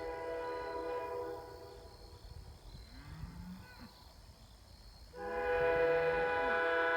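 Holden J3 snow-plow air horn sounding a steady chord, which stops about a second in. After a few seconds of faint sound it blows again, louder, about five seconds in.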